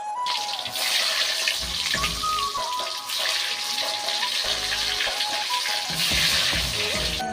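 Background music with a melody, over a loud steady hiss of cooking noise that starts suddenly just after the beginning.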